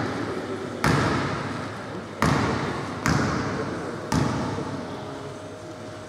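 A basketball bounced four times on a wooden gym floor, about a second apart, each thud echoing through the large hall: a shooter's dribbles before a free throw.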